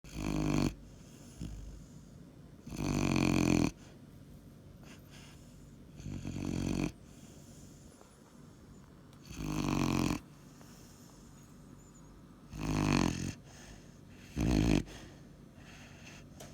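Weimaraner puppy snoring in its sleep: about six snores, each roughly a second long, coming every three seconds or so with quieter breathing in between.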